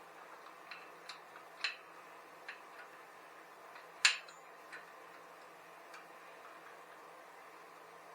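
Scattered light metallic clicks and clinks of hand tools at work on a bicycle engine kit's mounting hardware, a handful of sharp ticks at uneven intervals, with one louder clink about four seconds in and another at the very end.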